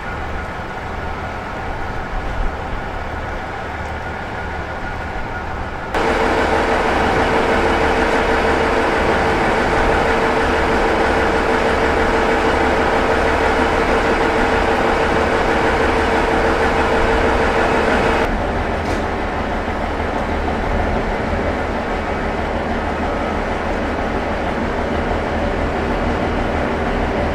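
Diesel railcars idling at a station, including a KiHa 40-series railcar, a steady engine rumble. The sound jumps louder about 6 seconds in with a steady hum on top, and drops back about 18 seconds in.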